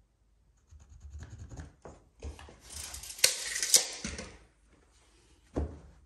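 Carpet rubbing and scraping as it is handled and worked into place, louder and hissier in the middle, with two sharp clicks there and a single dull thump near the end.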